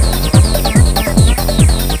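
Early-1990s electronic techno track: a heavy kick drum hits a little over twice a second, each kick dropping sharply in pitch, under fast, repeating, downward-sliding synth figures.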